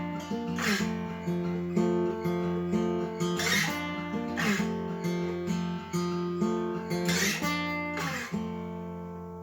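Acoustic guitar strumming chords in the closing instrumental bars of a song, with a stroke about every second. A last chord a little after eight seconds in rings out and fades.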